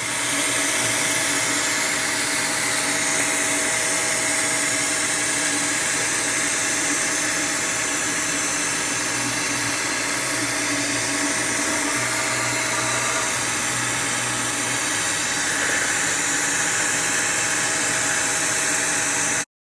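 Optimum CNC milling machine running steadily as it mills, a dense machining noise with a few steady tones from the spindle, stopping abruptly near the end.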